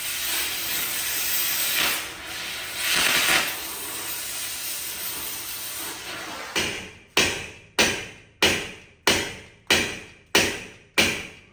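Compressed air hissing steadily from an air-hose tool worked at a truck's rear differential housing. About six and a half seconds in, it gives way to about eight sharp, evenly spaced hits, roughly one and a half a second, each dying away quickly.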